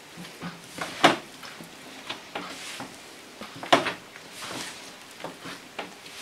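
Hands kneading a large mass of paska yeast dough on a floured table: irregular soft slaps and rubbing, with two louder thumps, about a second in and near four seconds in.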